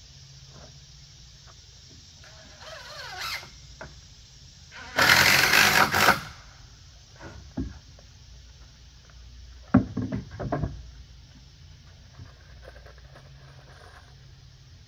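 Cordless drill driving screws into the wooden deck railing in short bursts. The longest and loudest burst lasts about a second, around five seconds in, and a cluster of shorter bursts comes near ten seconds.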